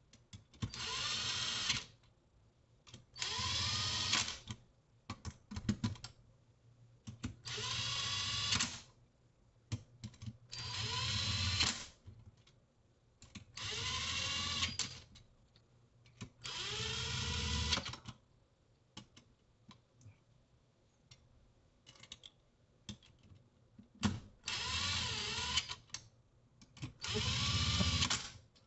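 Power driver running bolts down into an engine crankcase, in eight short bursts of about a second and a half each. The motor's pitch rises and falls within each burst. Small clicks of handling come between the runs.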